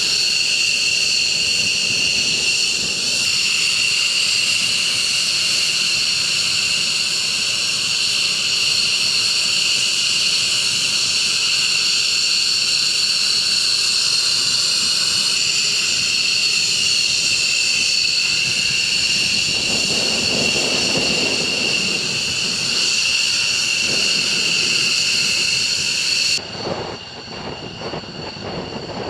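Jet engine running loud and steady with a high whine made of several steady tones over a rushing noise. About 26 seconds in, the sound cuts abruptly to a quieter, duller aircraft engine noise.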